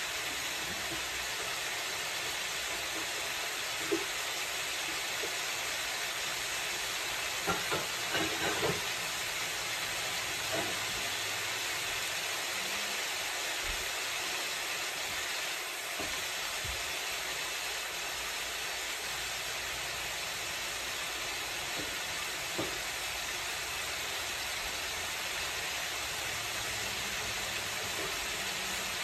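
Ground beef, bell peppers and onions sizzling steadily in a frying pan, with a few scattered pops and crackles.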